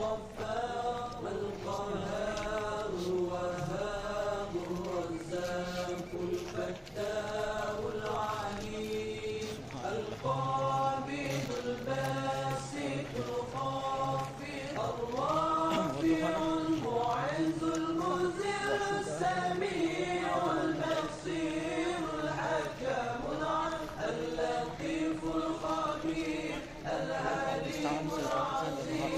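Male voices chanting a slow devotional melody with long held, gliding notes over a low steady hum.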